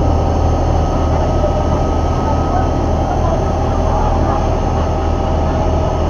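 Engine of a Chao Phraya river passenger boat running steadily under way, a loud, even low drone, with water rushing along the hull.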